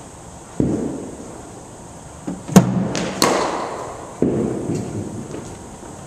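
Cricket bat striking a hard cricket ball with a sharp crack about two and a half seconds in, followed a moment later by a second sharp knock, among three dull thuds of balls landing, all echoing in a large indoor hall.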